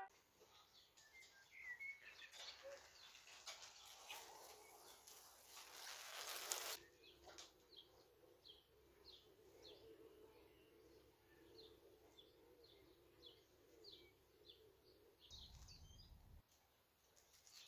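Faint outdoor ambience: a small bird chirping repeatedly, short high notes about once a second in the second half, over a light hiss of background noise that swells for a moment before settling. A brief low rumble near the end.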